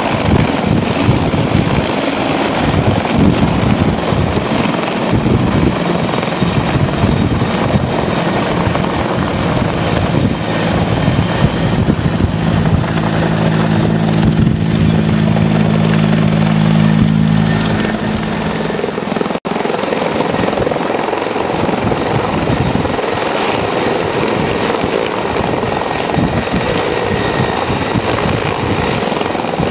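Police helicopter hovering low overhead: loud, continuous rotor and turbine noise, pulsing in the low end. For several seconds in the middle a steady low hum rises above it, followed by a momentary break in the sound.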